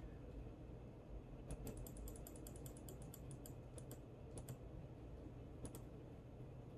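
Faint clicking at a computer: a quick run of clicks starting about one and a half seconds in, then a few pairs of clicks.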